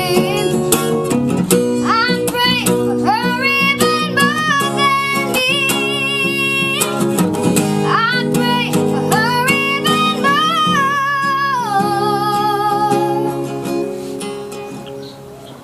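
A child singing a slow ballad to acoustic guitar accompaniment. Near the end the voice holds a long note and stops, and the guitar fades down.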